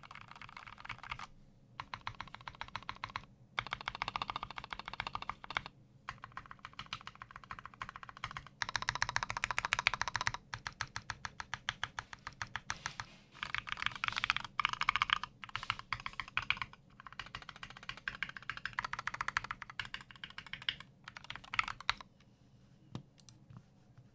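Fast typing on a YMDK64 split 60% mechanical keyboard with lubed Gateron Brown KS-3 tactile switches in an integrated aluminium plate, with no foam in the case. Runs of rapid keystrokes come in bursts with short pauses between them and thin out near the end.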